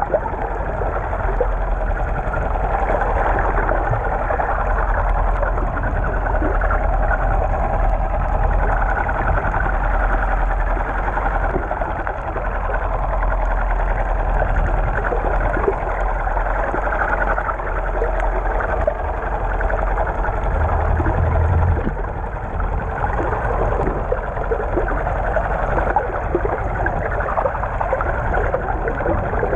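Steady, muffled rushing and gurgling of water heard underwater through a GoPro's waterproof housing while snorkeling, with a low rumble beneath.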